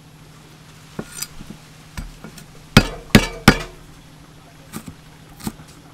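Sharp knocks and taps on a wooden chopping board: a couple of light taps, then three loud knocks in quick succession about halfway through, and a few lighter taps near the end.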